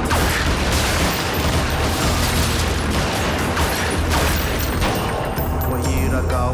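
Rapid, dense pistol gunfire from a film shootout, over music with a steady bass line; the shots thin out after about five seconds.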